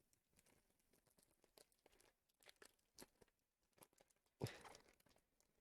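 Faint crinkling and small clicks of packaging being handled and picked open, with one louder rustle about four and a half seconds in.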